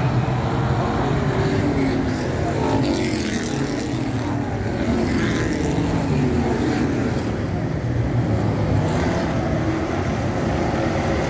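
A field of dirt-track stock cars racing, many engines running hard together, their pitch rising and falling as cars pass.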